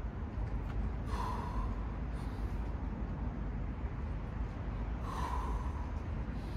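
Two sharp, forceful breaths, about four seconds apart, from a man straining through slow push-ups, over a steady low rumble.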